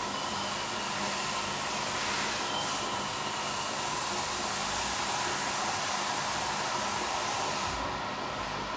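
Steady hiss with a faint low hum from a pot cooking on a small electric stove.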